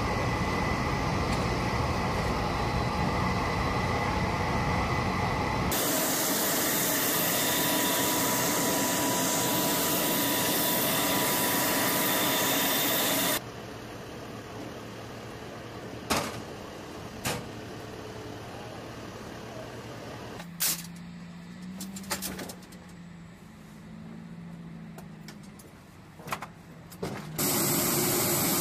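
Steady engine and turbine noise on a helicopter flight line, loud for the first half, then breaking off abruptly into a quieter stretch with a few sharp knocks and a low wavering hum, and coming back loud near the end as a helicopter rolls past.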